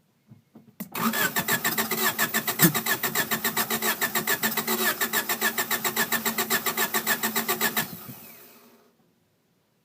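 1993 Honda Accord LX's 2.2-litre four-cylinder engine being cranked by its starter for about seven seconds, in fast even pulses, without catching. The pulses stop nearly eight seconds in and fade away. This is a crank-no-start condition with an irregular cranking rhythm, even though the main relay tests okay.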